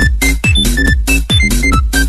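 A smartphone ringtone in an electronic dance style: a kick drum about twice a second under a melody of short, high synth notes.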